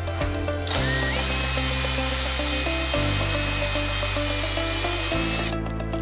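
Power drill boring a step bit through a PVC cap. The drill starts just under a second in, its motor whine rising briefly and then running steadily, and stops about five and a half seconds in. Background music plays throughout.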